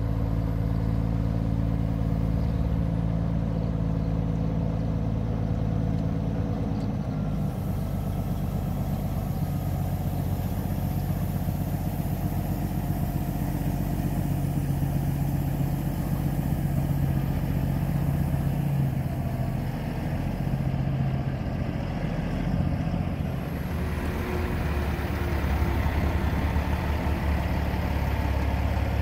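Heavy diesel truck engine running at low speed, a steady low hum with engine tones stacked above it. The tone changes abruptly twice, about a quarter of the way in and again about three quarters of the way in.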